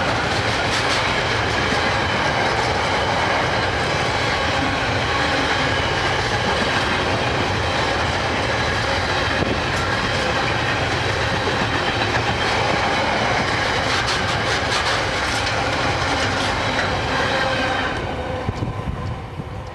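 Gypsum wagons of a freight train rolling past close by: a steady rumble and rattle with wheels clicking on the rails. The noise drops away about eighteen seconds in as the last wagon clears.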